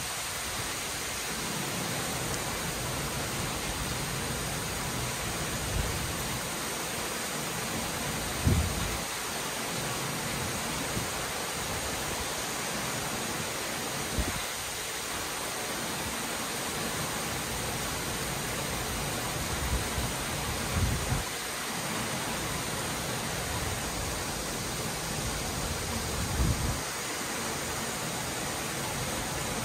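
Torrential rain falling in a steady, even hiss. A few brief low thumps cut in, the loudest about eight and a half seconds in.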